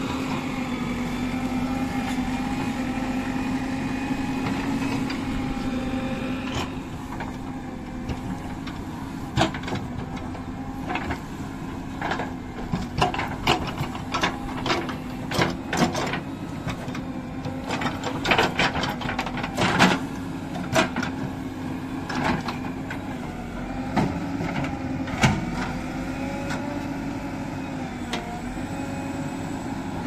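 JCB 3DX backhoe loader's diesel engine running steadily under load while the backhoe digs. From about nine seconds in until a few seconds before the end, a string of sharp knocks and clanks from the bucket and arm working the soil rides over the engine.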